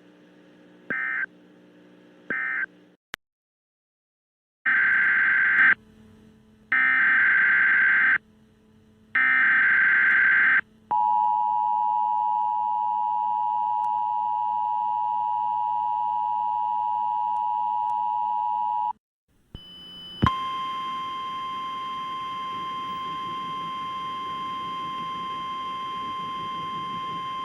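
Emergency Alert System data tones: two short screeching end-of-message bursts, a gap, then three one-second screeching header bursts. They are followed by the EAS attention signal, a steady two-note tone held for about eight seconds. After a brief break a single steady 1050 Hz NOAA Weather Radio warning tone sounds for about eight more seconds.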